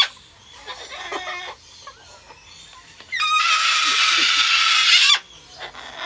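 Cockatoo screaming: one long, harsh scream of about two seconds starting about three seconds in, after a few softer squawks in the first second and a half. The birds are taken to be vying for attention.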